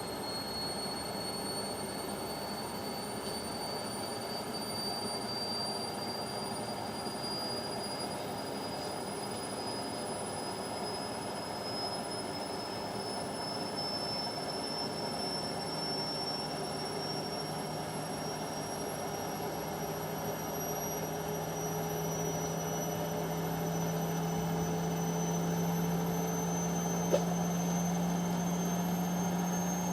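Indesit washing machine spinning up in its final spin, the motor's high whine rising steadily as the drum speed climbs toward 1200 rpm. A deep hum grows stronger in the second half, and there is a single click about 27 seconds in.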